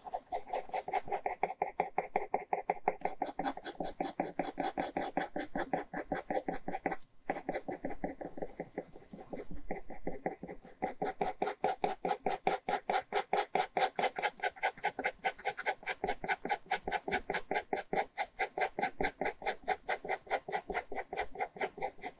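Ballpoint pen scratching across paper in quick, even back-and-forth hatching strokes, several a second, as shading is laid down. The strokes pause briefly about seven seconds in and are lighter for a moment near ten seconds.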